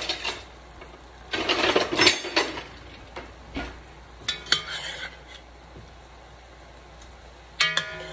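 A spatula stirring and scraping chicken pieces around an enameled cast-iron Dutch oven in two bouts, with a light sizzle under it as the chicken browns. A short ringing clink of the utensil against the pot comes near the end.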